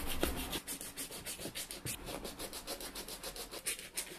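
A small hand brush scrubbing the dried suede upper of a work boot in quick back-and-forth strokes, several scratchy strokes a second. It is the brushing-out of suede that has dried after wet cleaning.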